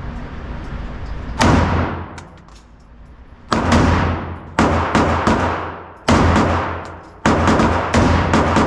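Semi-automatic AR-15 rifle firing single shots in a slow string, about seven, spaced from half a second to two seconds apart. Each shot rings out and dies away over about a second.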